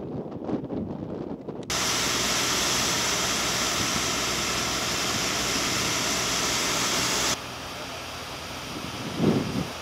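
Fire hose nozzle spraying a water jet: a loud, steady hiss that starts suddenly about two seconds in and drops to a quieter hiss about seven seconds in. A brief low gust of wind noise comes near the end.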